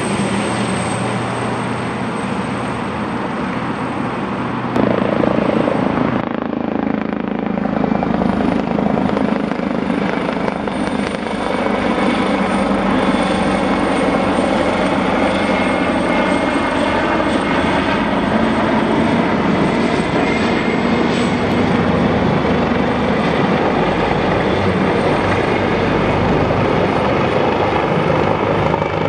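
AgustaWestland AW139 twin-turbine helicopters flying low overhead: a loud, continuous rotor beat over a steady turbine whine. The sound jumps in level about five seconds in.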